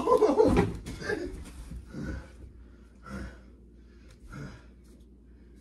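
A loud cry and a thump at the start as one wrestler goes down against the couch. Then come short gasps and heavy breaths, about one a second, growing fainter.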